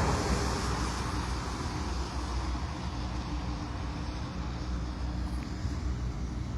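Steady low background rumble with no distinct events, of the kind made by distant road traffic.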